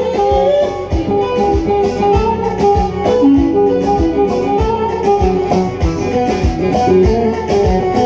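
Live amplified Turkish folk band playing an instrumental passage: a long-necked lute (bağlama) picks a quick melody over keyboard, with a steady hand-drum beat.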